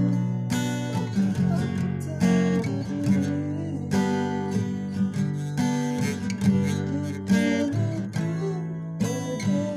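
Music: an acoustic guitar strumming chords.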